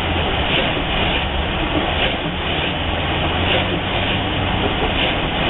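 Steady engine and road noise heard inside a car while driving on a wet, slushy road: a continuous low rumble with tyre hiss over it.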